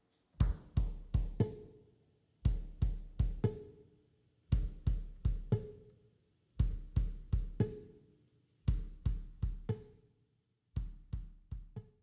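Background music: a drum beat of short runs of heavy, deep hits, repeating about every two seconds.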